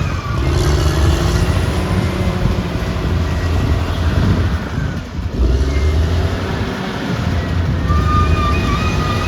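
Caterpillar D6R XL bulldozer working, its diesel engine running loud and steady under load with a thin, steady high-pitched whine over it. The engine sound sags briefly about five seconds in, then picks up again.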